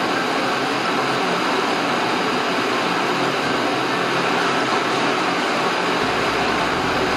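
Three butane blowtorches burning together: a steady, loud rushing hiss of gas flames.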